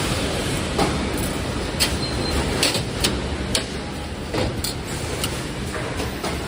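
Automatic 2D CNC wire bending machine running, a steady mechanical noise broken by irregular sharp clicks and clanks from the bending and feeding mechanism.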